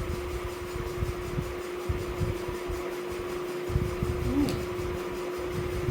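A steady mechanical hum, like a running fan, with soft irregular low thuds and two brief clicks, one about four and a half seconds in and one at the end.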